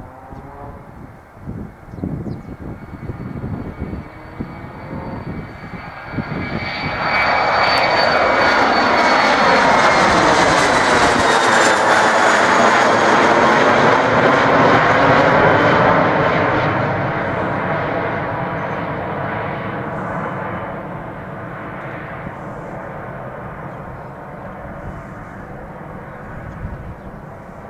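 Cessna 680 Citation Sovereign's twin Pratt & Whitney Canada PW306C turbofans at takeoff power, with a high whine that falls slightly in pitch as the jet passes. The noise swells to its loudest about eight to sixteen seconds in as it climbs out overhead, then fades away. Wind buffets the microphone in the first few seconds.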